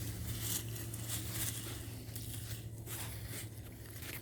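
Digging and scraping through wood-chip mulch while unearthing sweet potatoes: a run of short rustling, scratchy scrapes over a steady low hum.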